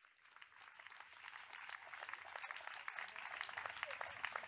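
Audience applauding, many hands clapping at once, growing louder.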